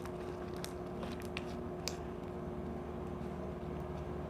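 Clear gel slime being handled, giving a few faint sharp clicks over a steady low hum.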